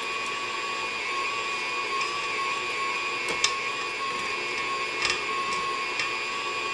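KitchenAid Ultra Power stand mixer's motor running steadily with a whine, beating cream cheese and sugar, with a few light clicks about halfway through and near the end.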